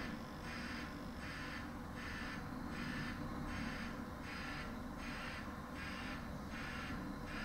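Delivery lorry's reversing alarm pulsing in an even rhythm, about three beats every two seconds, over a low steady rumble.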